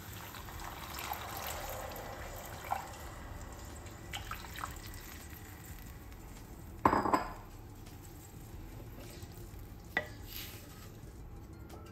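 Water poured from a glass bowl into a stainless-steel kadai of ghee-fried rice, with a hissing splash over the first few seconds. Small clinks follow, then a sharp double clatter of cookware about seven seconds in and a wooden spatula knocking and stirring in the pan near the end.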